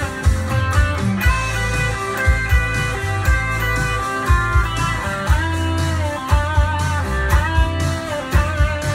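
Live band playing an instrumental passage: an electric guitar solo with bent, wavering notes over bass and a steady kick-drum beat.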